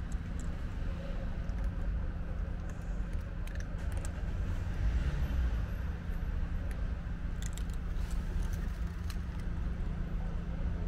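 Cats crunching dry kibble, a few sharp crunches here and there over a steady low rumble and hum.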